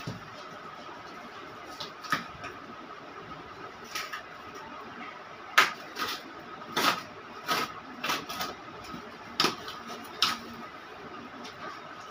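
A parcel being opened by hand: scattered sharp clicks, snips and crinkles of tape and packaging, about a dozen in all, over a faint steady hum.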